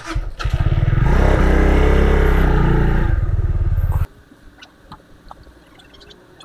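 Benelli TNT25's single-cylinder engine revved up and held at a steady high rev for about three seconds, then cut off abruptly.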